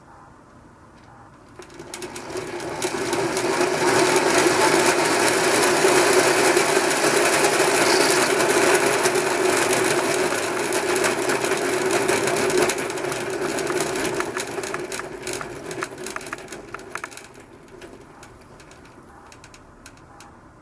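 Shimano Nexus Inter-8 (8R31) internal gear hub turning and making an abnormal noise: a dense, rapid clicking rattle over a steady hum. It swells up about two seconds in, holds, then fades away over the last few seconds. The cause of the noise is not yet known.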